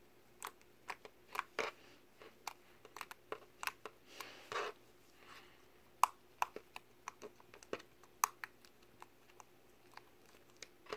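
Slime being poked and kneaded by fingers: an irregular run of short sticky clicks and pops, with a longer squelch about four seconds in.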